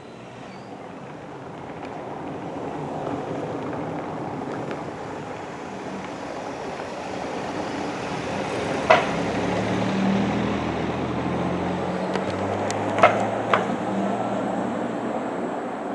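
A motor vehicle passing: a rushing noise that grows louder, with a low engine hum joining about halfway through and three sharp clicks in the second half.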